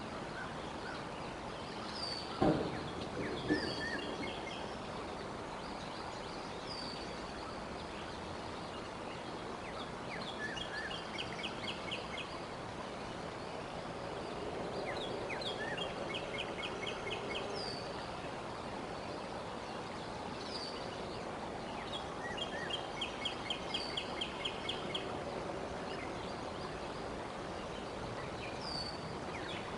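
Outdoor summer ambience: songbirds singing repeatedly, with high down-slurred notes and short rapid trills every few seconds, over a steady background hiss. Two sharp knocks about two and a half and three and a half seconds in.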